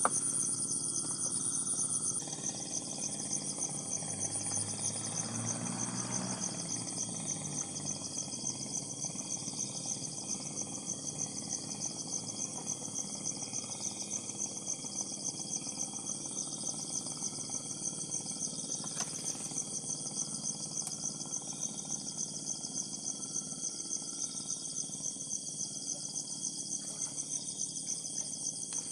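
Dense, steady high-pitched insect chorus, a continuous fine trill like crickets. A brief low rumble comes through about five seconds in.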